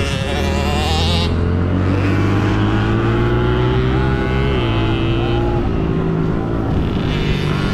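Pit bike engine running under throttle as the bike is ridden, its pitch rising and falling with a brief drop about halfway through.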